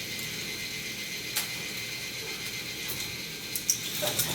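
K'NEX Viper's Venom roller coaster's plastic chain lift running, a steady ratcheting clatter of the chain over its gears, with a sharper click about a second and a half in.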